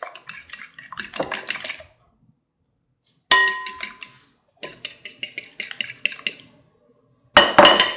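A fork beating eggs in a glass mixing bowl. The tines click rapidly against the glass, about six strokes a second, in bursts with short pauses. A few louder clinks leave the glass bowl ringing.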